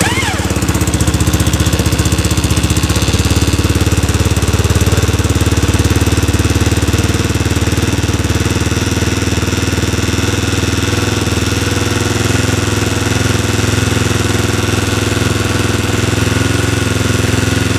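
Yamaha Raptor 660 ATV's single-cylinder four-stroke engine idling steadily just after being started, warming up.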